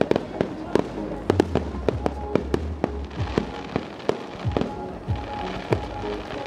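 Aerial fireworks bursting: a fast, irregular run of sharp bangs and crackles, several a second.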